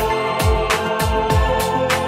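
Instrumental background music with a steady beat: low drum thumps about three times a second under held melodic tones.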